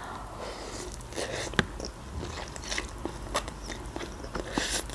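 Close-up mouth sounds of a person eating instant noodles: wet chewing with sharp mouth clicks and short slurps as forkfuls of noodles go in.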